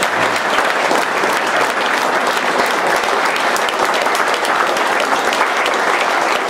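Sustained applause from a large hall audience, many people clapping steadily.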